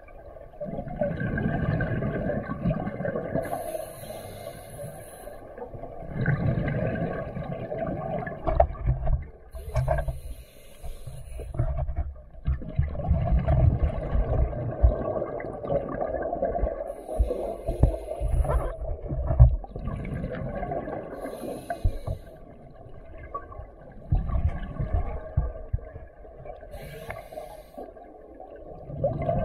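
Scuba diver breathing underwater through a regulator: a short hiss at each inhale, then a longer low rumble of exhaled bubbles, about five breaths in a steady rhythm.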